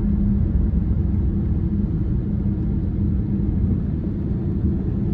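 A 2014 Dodge Charger SRT 392's 6.4-litre HEMI V8 cruising, heard from inside the cabin. Its exhaust gives a steady low drone over road rumble, with no revving.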